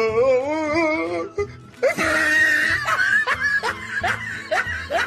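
Music with laughter over it: a wavering held note in the first second, then a louder, busier stretch with repeated short rising sounds.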